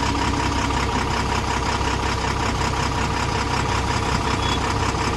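An engine running steadily at idle, with an even pulsing drone and a constant hum.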